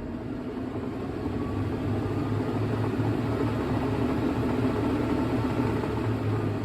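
Hitachi NW-5WR 5 kg top-loading washing machine in its spin cycle: a steady motor and spinning-drum hum with a low drone, growing a little louder over the first second or two.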